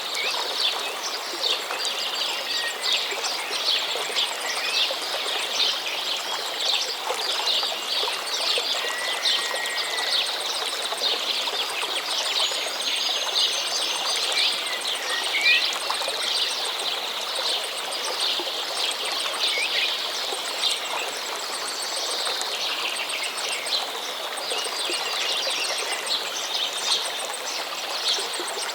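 Stream flowing steadily, with several birds chirping and singing over it in quick, dense calls and a few short whistled glides.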